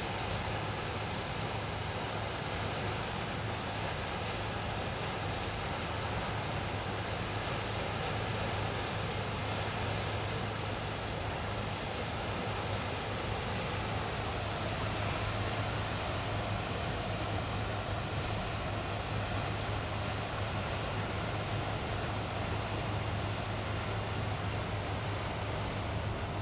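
Steady low drone of a passing Rhine cargo ship's diesel engine under an even rushing hiss of wind and water.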